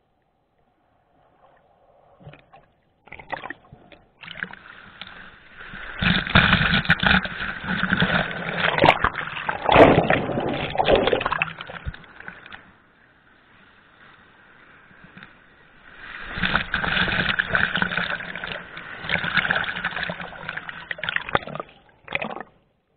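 Water sloshing and splashing in two longer spells, with quieter lapping between them.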